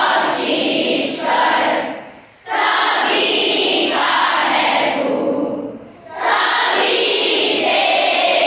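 A large group of schoolchildren singing a prayer together in unison, in long sung phrases broken by two short breath pauses, about two and six seconds in.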